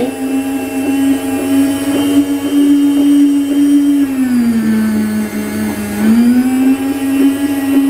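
Maksindo MKS-M19 electric frozen-meat slicer running, its motor and circular blade giving a steady hum. For about two seconds midway the hum sags in pitch and then recovers, as the blade cuts through a piece of beef pushed on the carriage.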